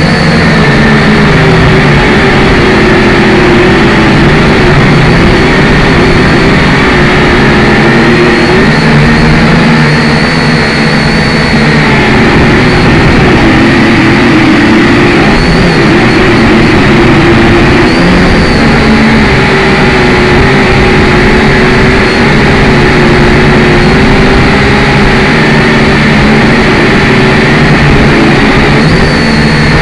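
Syma X5C quadcopter's four small brushed motors and propellers whirring loudly and continuously, the pitch wavering up and down as the throttle changes in flight.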